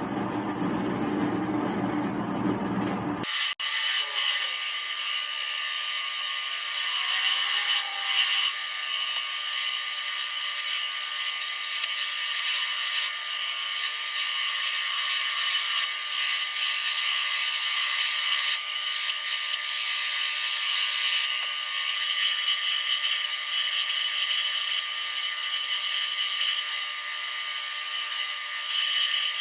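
Wood lathe running steadily with a high whine as it works a wooden handle blank. The sound changes abruptly about three seconds in, to a thinner, steadier whine that holds.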